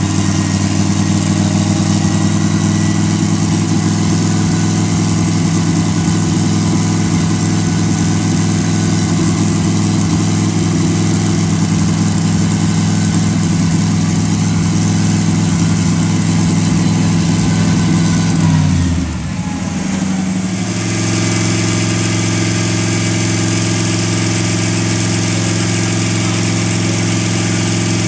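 Fuel-injected 320 cubic inch Buick straight-eight in a land-speed lakester, idling steadily. About eighteen seconds in its note drops sharply, and about two seconds later the steady idle is back.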